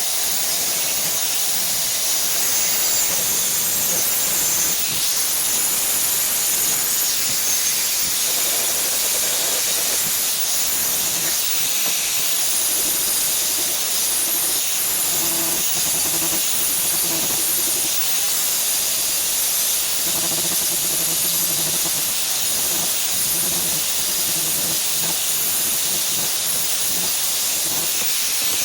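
Steady, even hiss, mostly high in pitch and unbroken throughout.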